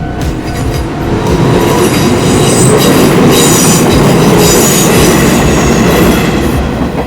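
Electric train passing close by, its wheel and rail noise swelling about a second in and easing off near the end, with thin high tones ringing over it in the middle.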